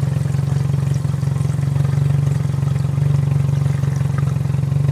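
1998 Chevy Prism's four-cylinder engine idling steadily, running on chocolate milk mixed into its engine oil and petrol.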